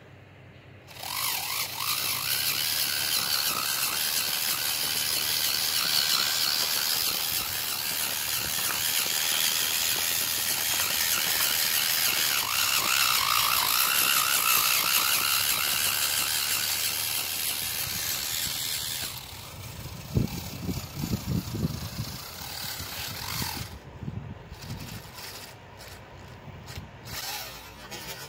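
Homemade RC 6x6 truck's brushed DC motor and gear train whining and grinding as it drives, the pitch wavering up and down with the throttle. About nineteen seconds in it drops quieter, followed by a run of low knocks as the chassis climbs onto a curb.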